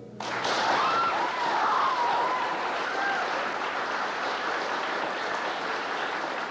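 Audience applauding, starting suddenly as the music stops, with a few cheering voices in the first few seconds.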